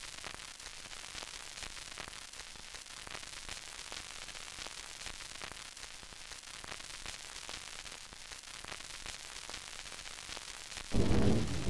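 Steady static hiss with scattered crackling clicks. About eleven seconds in, solo jazz piano music comes in, much louder.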